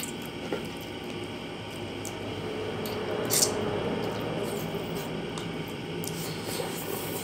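Close-miked chewing and wet mouth sounds of a person eating soft rice and sardines by hand, with one short sharp noise about three and a half seconds in.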